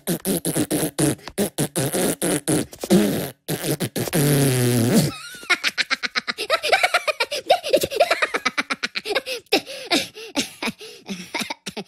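Cartoon Minion voices beatboxing with mouth noises: a fast run of pops and clicks, then a long buzzing raspberry like a fart about four seconds in, then more pops mixed with babbling.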